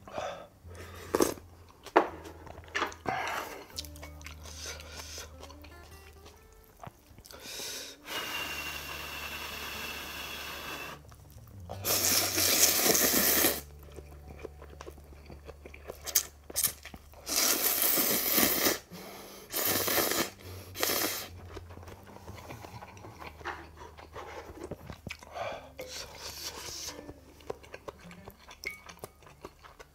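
Eating sounds from a bowl of tonkotsu ramen: broth sipped from a spoon, chewing, and four long, loud noodle slurps in the middle, over soft background music.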